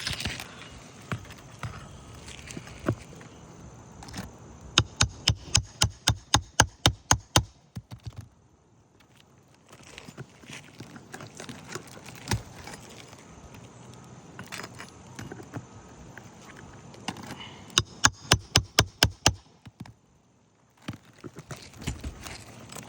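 Two runs of rapid, sharp taps, about six a second, from a hand tool working a nailed asphalt roof shingle loose, with quieter scraping and handling between them.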